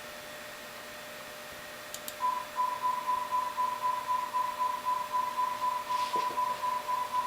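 A steady, single-pitch test tone comes on about two seconds in over a faint background hiss, its loudness wavering rapidly; it is typical of a sine test signal used to measure a tube amplifier.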